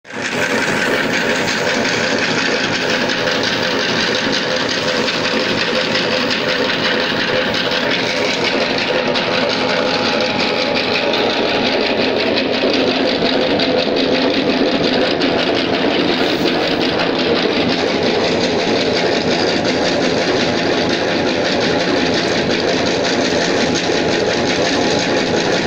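Electric-motor-driven screw oil expeller running steadily while pressing sunflower seed: a loud, continuous mechanical noise from the motor, belt and press.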